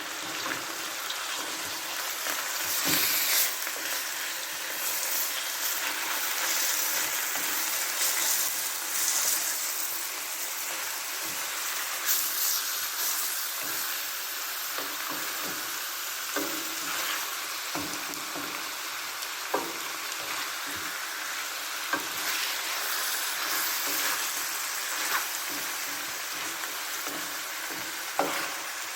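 Chicken with onions and garlic sizzling steadily in a frying pan as it is stir-fried, with occasional sharp clicks and scrapes of the utensil against the pan.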